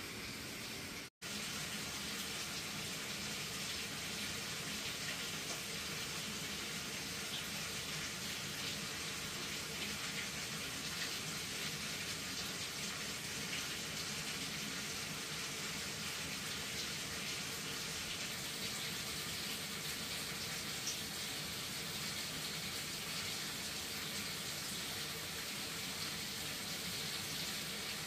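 Running water: a steady rush that cuts out for an instant about a second in.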